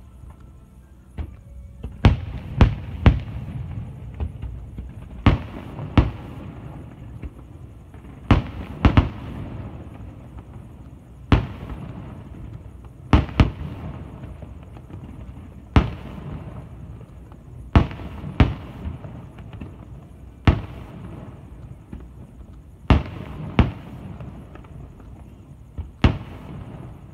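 Aerial firework shells bursting in sharp booms, singly or in quick pairs every two to three seconds, each followed by a rolling rumble that lingers between the bursts.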